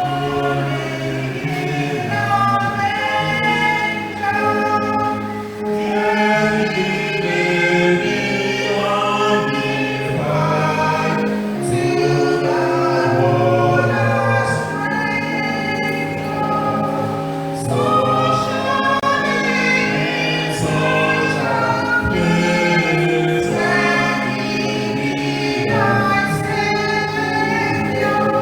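Church choir singing, many voices holding and moving between sustained notes over steady low notes.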